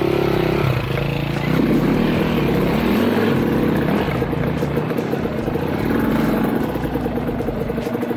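Dirt bike engine under load on a steep rocky climb, its pitch rising and falling as the throttle is worked.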